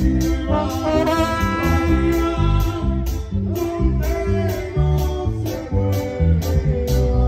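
Regional Mexican band music: a steady pulsing bass under plucked guitar and held melody lines.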